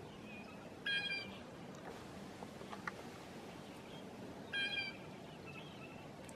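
Two loud, brief blue jay calls, one about a second in and another around four and a half seconds in. Between them come faint short peeping calls from a feeding grosbeak flock.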